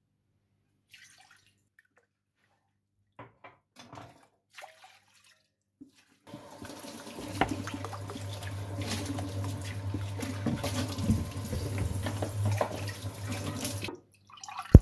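Cooking oil pouring in a steady stream from a plastic bottle into a drinking glass over a stainless-steel pot. It runs continuously for about eight seconds, starting about six seconds in and growing slightly louder. A few faint clinks come before it, and a sharp tap comes near the end.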